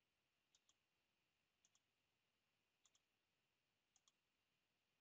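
Faint computer mouse button clicks: four of them about a second apart, each a quick press-and-release double tick, over near silence.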